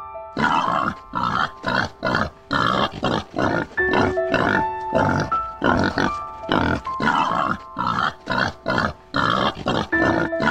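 A pig grunting over and over in short noisy grunts, about two a second, over background music with held notes.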